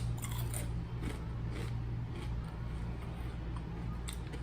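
Potato chips being chewed with the mouth, a run of faint, irregular crunches, over a steady low electrical hum.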